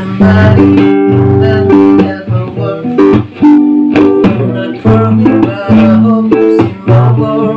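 Acoustic-electric guitar strummed and picked through a small Aria guitar amplifier, running on 220 V through a replacement transformer, with a man singing along.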